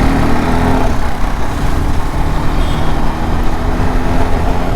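KTM RC 390's single-cylinder engine running at a steady speed while the bike is ridden, over a constant low rumble. The engine is newly installed, replacing one that was burning oil.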